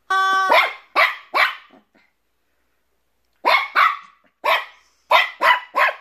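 A squeaky rubber chicken toy squeezed once, giving a steady honking squawk about half a second long. A Shih Tzu–Bichon Frise puppy then barks: a few short barks right after, then a run of about six quicker barks in the second half.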